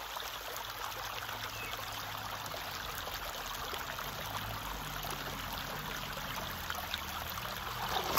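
Shallow river water running steadily over stones, close to the surface. Near the end a foot steps into the water with a splash.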